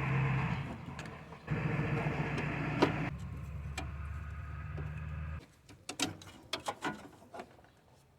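Cordless power tool motor running in two spells, a short one and then a longer one of about four seconds, spinning out a 10 mm bolt on the A/C pipe at the condenser. A few light metallic clicks follow near the end.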